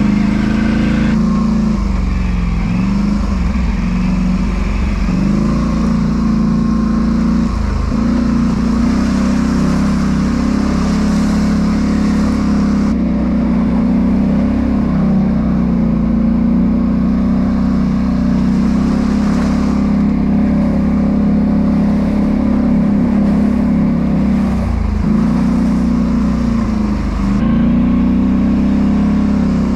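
Polaris Sportsman 850 ATV's parallel-twin engine running under throttle. Its speed dips and picks up again several times as the throttle is eased off and opened.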